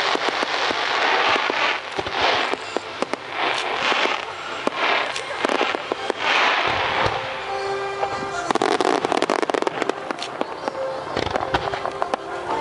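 A starmine fireworks barrage: shells bursting one after another, turning into a dense run of crackling about eight and a half seconds in, with music playing along with the display.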